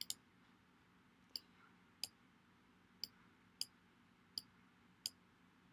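Computer mouse button clicking: about eight short, sharp clicks, roughly one a second, with a quick double click at the start, over faint room tone.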